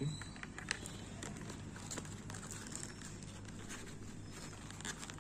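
Scattered small clicks and light rustles of hands handling earphone cables and their plastic packaging, over a steady low hum.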